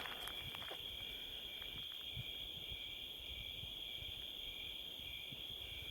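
Crickets chirping in a steady, continuous high-pitched chorus, with a few faint clicks.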